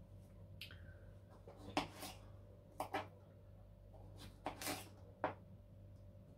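Kitchen knife slicing a cucumber and striking a wooden cutting board: about eight separate cuts, irregularly spaced, each a short knock.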